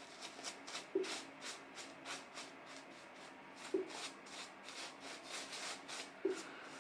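Faint repeated rubbing strokes, a few a second, with three soft knocks: about a second in, near four seconds and near the end.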